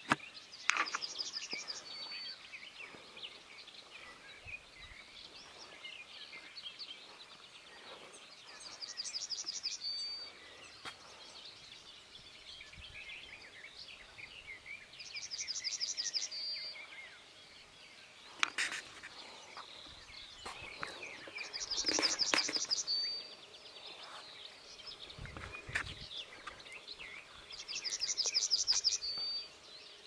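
A songbird repeating the same short song about every six seconds, five times: a fast trill of repeated high notes ending in a brief held note, over softer chirping of other birds. A couple of sharp clicks, the loudest about eighteen seconds in.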